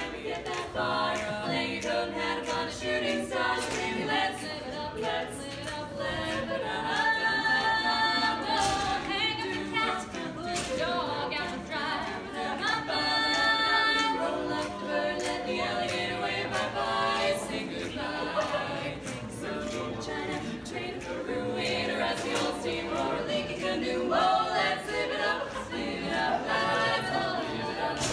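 Four-woman a cappella quartet singing an upbeat song in close harmony, voices only with no instruments.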